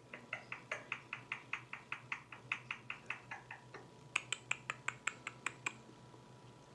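Indian ringneck parrot making a rapid run of short clicking notes, about five a second. About four seconds in, they turn into sharper, brighter clicks that stop near six seconds.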